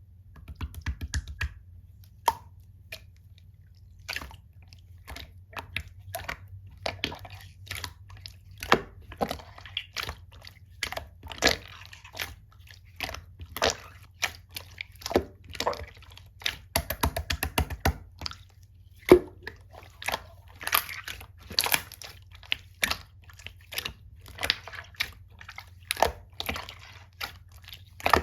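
Mixed slime being squished, stretched and poked by hand, giving a dense, irregular run of short wet clicks and pops.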